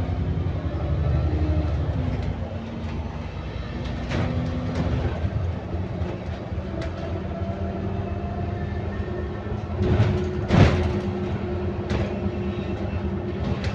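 Inside a double-decker bus with a Voith automatic gearbox: the engine and drivetrain run steadily, with interior panels rattling and clicking. A loud knock comes about ten and a half seconds in.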